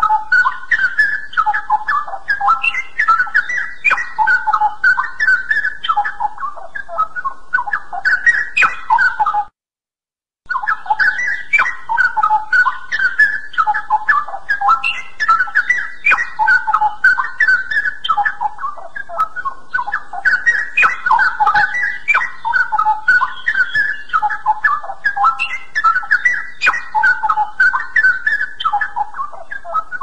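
Straw-headed bulbul (cucak rawa) in full song: a long, rapid run of loud warbled phrases. The song breaks off for about a second around nine and a half seconds in, then resumes.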